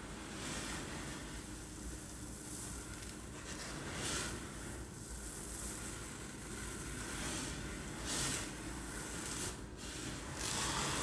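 Uncooked rice grains sliding and rattling in a tilted container, imitating the sea: a soft hissing wash that swells and fades every few seconds like waves breaking on a beach.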